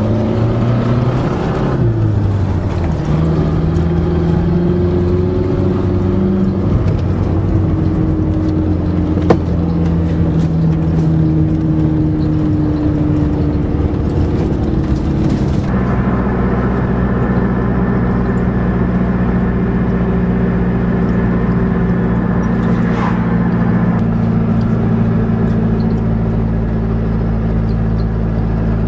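Dodge Aries wagon's engine and road noise while driving with a loaded trailer in tow. The engine pitch shifts up and down over the first half, then holds steady at cruise from about halfway. There is a single sharp click about nine seconds in.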